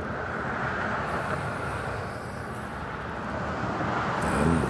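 Road traffic noise: a steady rushing of passing vehicles that swells and eases, with a short low sound near the end.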